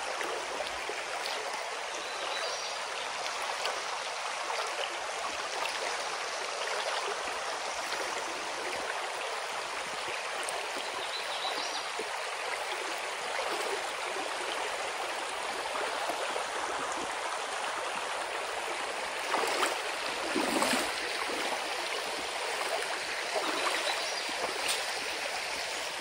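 Creek water rushing steadily over rocks around a person wading through it barefoot, with a few louder splashes from the wading steps about three-quarters of the way through.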